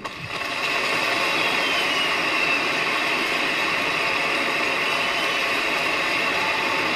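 Stand-up comedy audience applauding, swelling up over the first second and then holding steady.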